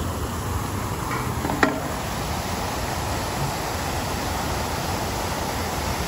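Steady rushing of a large fountain's water jet pouring into its pool, with one short knock about a second and a half in.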